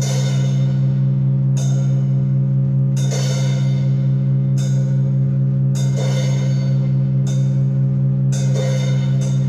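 Improvised electronic music: a loud steady low drone held underneath, with bell-like struck notes coming in roughly every one and a half seconds.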